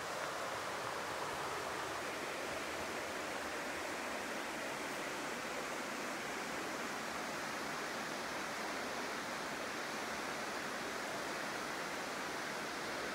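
Steady rush of a fast-flowing river running over rapids, an even hiss of water with no breaks.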